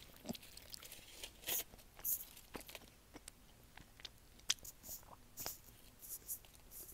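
Close-miked chewing of a chocolate: irregular crisp crunches and wet mouth clicks, picked up by an earbud headset microphone held at the lips.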